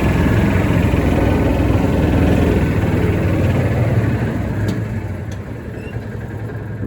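Farm tractor engine running steadily at low speed, growing quieter about two-thirds of the way through.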